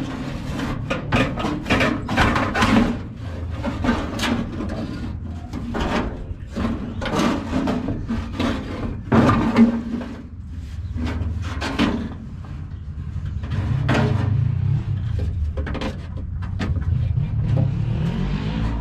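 Rusty sheet-metal front body piece of a 1965 Cushman Truckster being worked loose and lifted off its frame: repeated metal clunks, knocks and scrapes, busiest in the first two-thirds.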